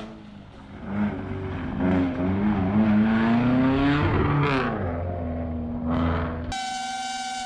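Gravel rally car accelerating hard toward the listener and passing close: its engine note climbs in pitch as it approaches, then drops as it goes by and fades away. About a second before the end the engine sound is cut off by a steady music drone.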